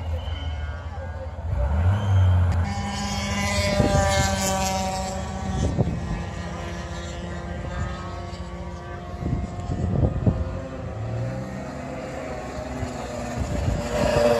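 A car engine running on a race circuit, its note loudest a few seconds in and then settling to a lower, steadier drone, with a few short low knocks along the way.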